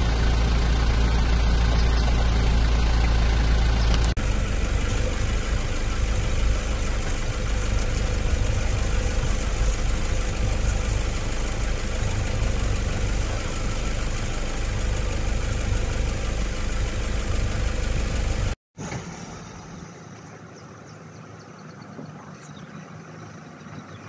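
Safari vehicle's engine idling with a steady low rumble. The sound changes abruptly about four seconds in, and after a brief dropout near the end it is much quieter.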